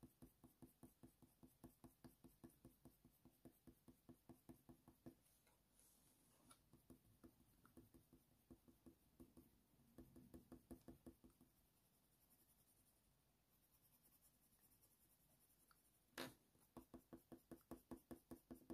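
Very faint, quick strokes of a coloured pencil on hot-press watercolour paper, about three or four a second, in runs with pauses between them, and a single soft knock near the end before the strokes start again.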